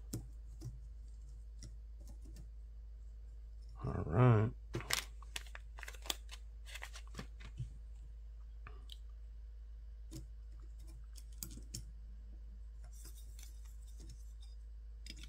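Scattered light clicks and taps of small parts and screws being handled while assembling a carbon-fibre FPV drone frame, with a brief hummed vocal sound from the builder about four seconds in.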